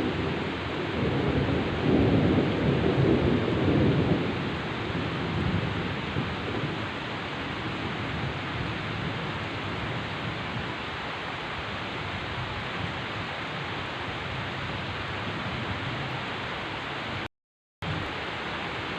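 Heavy rain pouring steadily, with a low thunder rumble swelling and fading over the first few seconds. The sound cuts out completely for half a second near the end.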